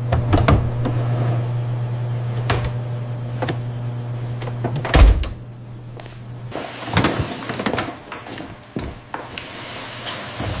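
Factory machinery with a steady low hum and a string of knocks and clunks, the loudest about five seconds in; the hum stops partway through while the clunking goes on.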